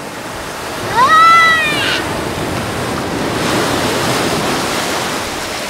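Small surf washing up the sand over bare feet, with a steady hiss of water that swells from about three seconds in. About a second in, a child gives one short high cry that rises then falls, the loudest sound.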